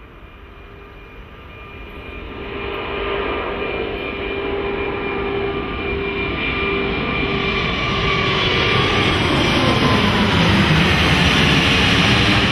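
Airbus A380's four Rolls-Royce Trent 900 turbofans at takeoff thrust as the airliner climbs toward and passes overhead. The whine and roar grow steadily louder, and the whining tones glide down in pitch in the last few seconds as it goes over.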